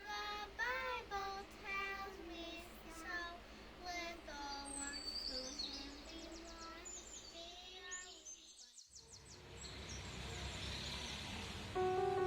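Outdoor ambience with a high voice, likely a child singing, over bird chirps and trills. After a sudden cut about nine seconds in comes a steady rushing noise, and soft music starts near the end.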